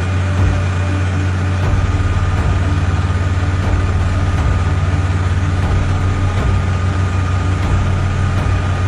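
A heavy engine running steadily: a constant low hum with a faint, even high whine over it.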